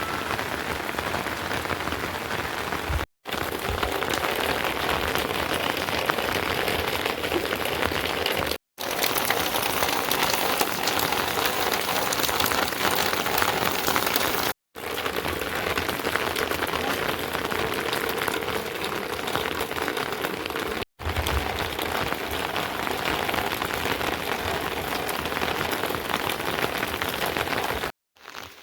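Steady rain falling, a dense even hiss, cut off abruptly for a split second five times.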